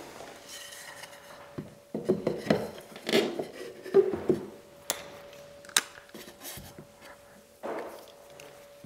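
A length of painted timber dado rail handled against a wall: scraping, rubbing and knocking of the wood, loudest between about two and four and a half seconds in, then two sharp clicks and a softer scuff.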